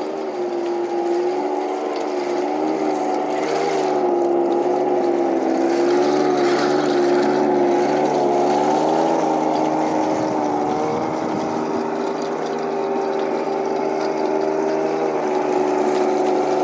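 Heng Long King Tiger RC tank driving, its sound unit playing a steady simulated tank-engine drone whose pitch rises and falls slightly with the throttle.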